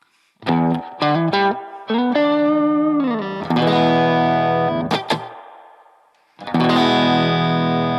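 Electric guitar, a Telecaster, played through a BOSS GT-1000's low-gain Vox-style amp model with reverb: a few quick chords, one sliding down in pitch about three seconds in, then a chord left ringing and fading away, and a new chord struck near the end.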